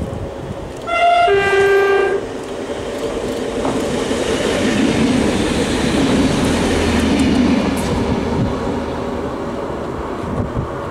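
A passing train sounds a two-tone typhoon horn about a second in: a short high note, then a longer, lower one. The train then rumbles past, with wheels clattering over the rails.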